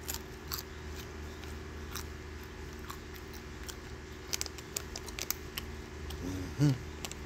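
Person chewing a tortilla chip with the mouth closed: scattered faint crunches and clicks over a steady low hum. There is a brief low voiced hum about six seconds in.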